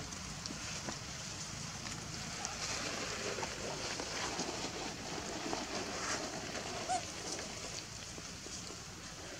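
Outdoor forest ambience: a steady high hiss with light rustles and soft taps as the macaques move over leaf litter and stone, and one short squeak about seven seconds in.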